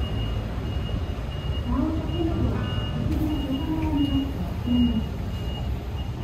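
Traffic in a station bus rotary: a low engine rumble from buses and cars, with a short high electronic beep repeating a little under twice a second, like a vehicle's reversing warning.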